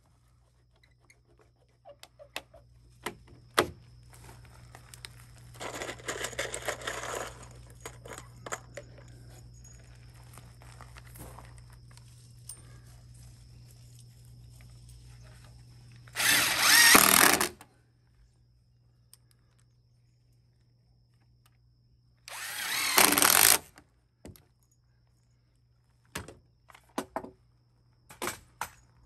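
A power drill running in two bursts of about a second and a half each, with a softer stretch of tool noise earlier and scattered knocks and clatter of timber framing work between.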